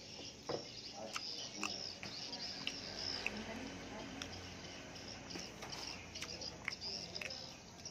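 Someone eating grilled fish close to the microphone: scattered small clicks and smacks of chewing, over a faint high steady hiss.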